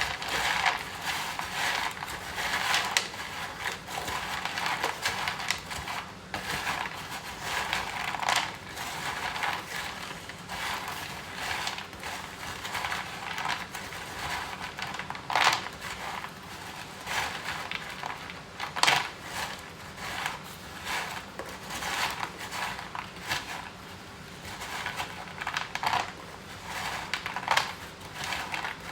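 A utensil stirring medication and a probiotic powder into cat food in a dish: continuous scraping and mashing, with a few sharp clicks against the dish.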